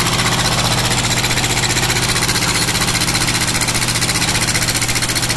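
Diesel engine swapped into a Sears Suburban garden tractor running steadily with an even, rapid pulse, warming up soon after its first start.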